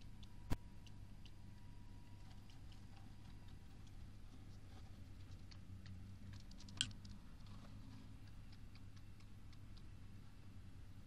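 Pet hamster making faint small ticks and scratches as it moves, over a low steady hum. A sharp click comes about half a second in, and one short, high sneeze comes about seven seconds in.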